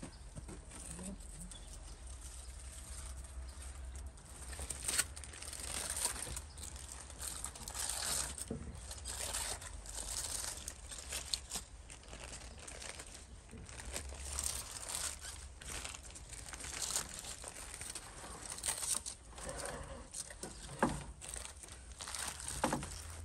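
Aluminium foil and baking paper crinkling and rustling as they are peeled open by hand, in irregular bursts that get busier about four seconds in.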